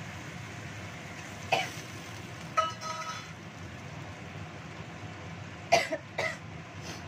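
Steady hiss of a gas burner under a wok of simmering broth, broken by several short coughs: one about a second and a half in, one near three seconds, and two close together near the end.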